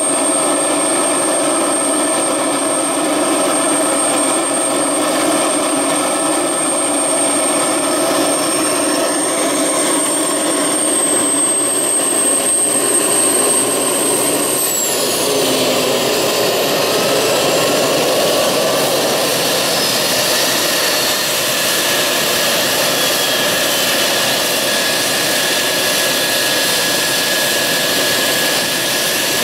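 F-16 fighter jet engine running on the ground: a steady high whine over a broad rush. About halfway through, the whine slides down in pitch and a lower steady tone carries on.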